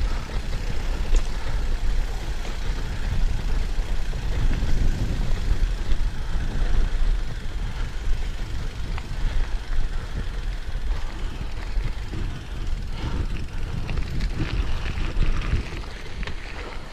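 Wind buffeting the microphone over the rumble of bicycle tyres rolling across a rough gravel track, quieting a little near the end.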